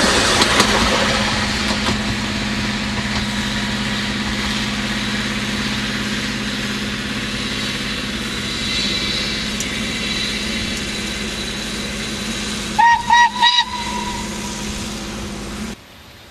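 A narrow-gauge steam train rolls close past, then runs away with a steady rumble that slowly fades. About 13 seconds in, the steam locomotive's whistle gives three short, slightly rising toots and a brief held note. Near the end the sound cuts off suddenly.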